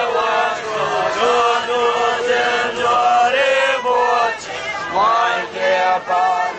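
A crowd of marching Tibetan monks chanting together in unison, many voices holding long, sustained phrases that rise and fall in pitch.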